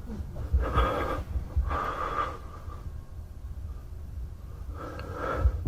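Three short, breathy, muffled vocal sounds from a person, the last near the end, over a low rumble.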